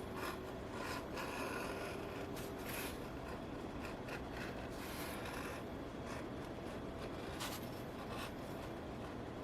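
Faint scraping strokes of a hand blade shaving thin strips off the edge of a piece of saddle leather.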